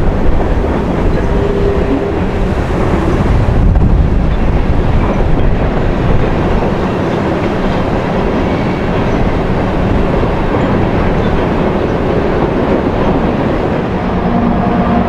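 Freight train cars rolling past: a steady, loud rumble and clatter of steel wheels on the rails.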